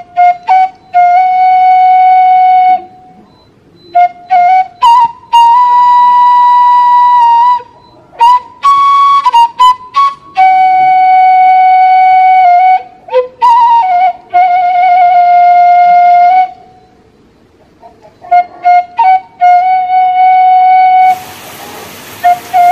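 Background music: a solo flute plays a slow melody. Long held notes with a slight waver are broken by runs of quick short notes, with short pauses between phrases.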